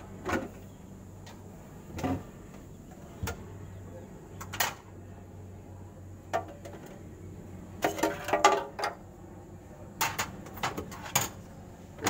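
Plastic refrigerator interior panels being pried loose and handled: scattered clicks and knocks, with a quick flurry of them about eight seconds in and a few more a couple of seconds later.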